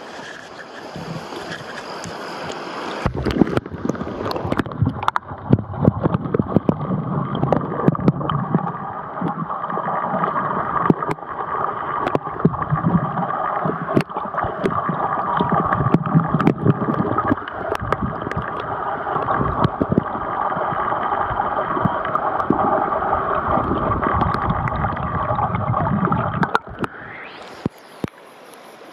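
Shallow mountain stream flowing over pebbles. About three seconds in, the waterproof camera goes under the surface and the stream turns muffled and gurgling, with a low rumble and many sharp clicks and knocks. A couple of seconds before the end, it comes back up into the open, hissing rush of the riffle.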